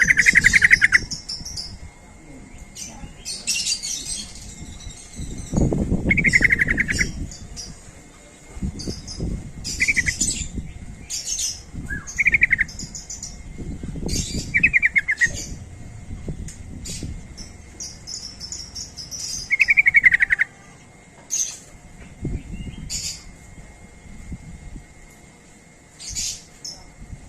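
Yellow-vented bulbuls (trucuk) calling: short, rapidly pulsed phrases repeated every few seconds, with higher chirps in between and patches of low rumbling noise underneath.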